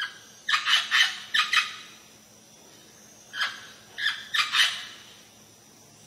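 A parrot calling in two quick bouts of short, loud calls: about five calls starting half a second in, then four more a little past three seconds.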